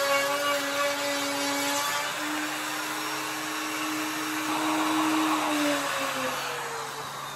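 Bosch router with a flush-trim bit running as it cuts along the back edge of an MDF-core cabinet panel, a steady high whine. Near the end its pitch falls and the sound fades.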